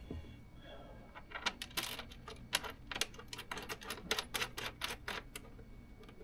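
Small metal hardware clicking and clinking in the fingers: a washer and crimped ring terminals being fitted onto a battery's terminal bolt. A rapid, irregular run of light clicks starts about a second in and stops shortly before the end.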